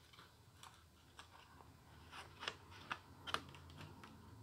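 Faint, scattered light clicks and taps of a small guitar nut and a thin wood-veneer shim being handled between the fingers, with a few sharper clicks in the middle.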